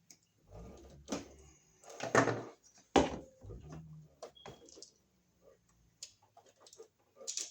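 Irregular clicks, rustles and knocks from hand tools and electrical wire being worked while a wire is trimmed and stripped to length for a GFCI receptacle's load terminal, with the loudest knocks about two seconds in and a sharp snap about three seconds in.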